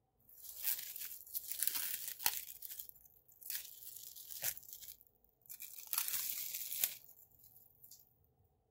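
Plastic cling wrap being peeled off a glass bowl, crinkling and crackling in three long pulls with sharp snaps.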